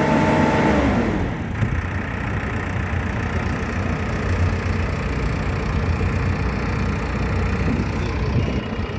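Backhoe loader's diesel engine running steadily, with a low, even rumble.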